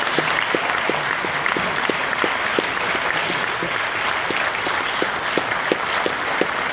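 Audience applauding in a concert hall, with a regular beat of short low knocks, about three a second, running through it.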